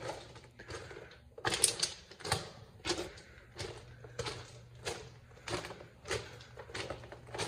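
Footsteps crunching on gravel ballast at a steady walking pace, a step roughly every two-thirds of a second.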